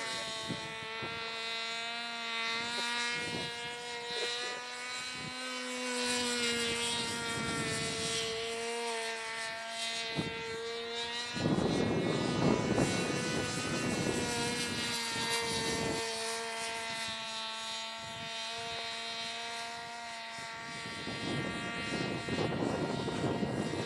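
Homemade plastic RC model plane's motor and propeller whining steadily in flight, the pitch drifting up and down with the throttle. A broad rushing noise swells in about halfway through and again near the end.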